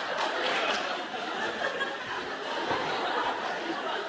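Theatre audience laughing, the laughter slowly dying down.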